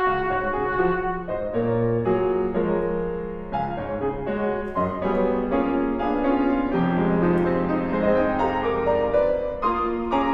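Grand piano playing a passage alone while the trumpet rests, in a recital hall.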